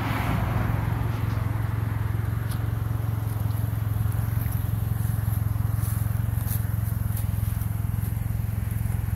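A car engine idling with a steady low hum. Faint scrapes and rustles of clothing come now and then as a person is patted down.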